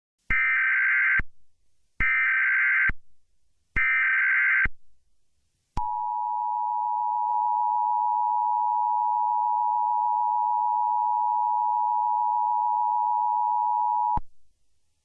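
Emergency Alert System alert tones: three bursts of buzzy SAME header data tones, each about a second long. Then the EAS two-tone attention signal, a loud steady dual-pitched tone held for about eight seconds, which cuts off sharply. Together they announce an emergency alert, here a snow squall warning.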